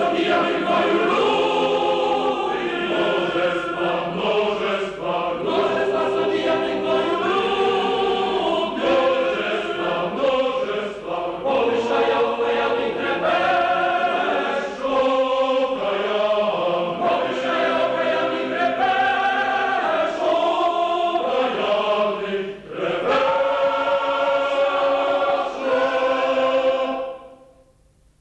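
A choir singing a slow song in sustained notes, with a short breath about three-quarters of the way through, and the song ends shortly before the close.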